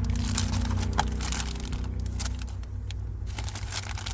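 Light clicks and rustling from handling a car stereo's wiring harness and its plastic connectors, over a steady low hum.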